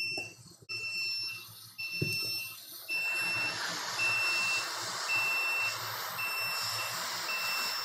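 Hot air rework station's timer beeping, a short high beep about once a second, signalling that the set one-minute heating time is up. About three seconds in, a steady hiss of blowing air joins the beeps.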